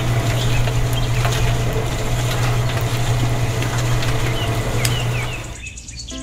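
A small motor or engine running with a steady, loud hum, cutting off near the end. Birds chirp faintly behind it.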